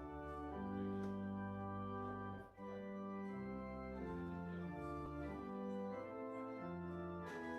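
Church organ playing sustained chords that change every second or so, with a brief break about two and a half seconds in: offertory music.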